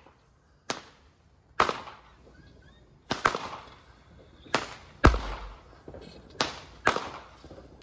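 Aerial fireworks going off: a run of about nine sharp bangs, spaced unevenly, some close together and some a second or more apart, each fading quickly.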